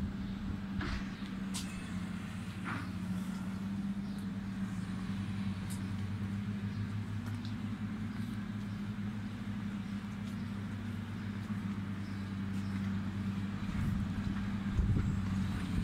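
Heavy diesel engine running steadily at one constant pitch, from the equipment at the site, with a few brief high chirps in the first few seconds.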